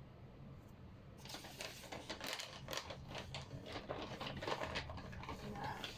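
Irregular light clicks and taps of hands and utensils at work in the kitchen, starting about a second in and going on quickly and unevenly.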